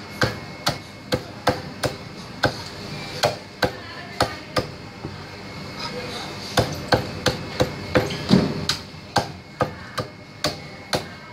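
Butcher's cleaver chopping a black-skinned chicken into pieces on a thick round wooden chopping block: sharp chops about two to three a second, with a pause of about two seconds near the middle.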